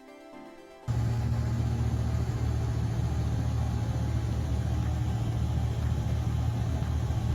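Kitfox light aircraft's engine and propeller heard from inside the cockpit in flight: a loud, steady drone with a strong low hum, cutting in abruptly about a second in as a short bit of music ends.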